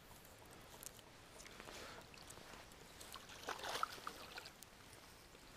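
Faint splashing and dripping water as a rainbow trout on a rope stringer is pulled up out of a river, with a few small handling clicks.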